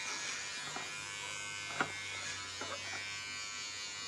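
Electric hair clippers buzzing steadily as they are run over a head of short hair during a buzzcut, with one brief click a little under two seconds in.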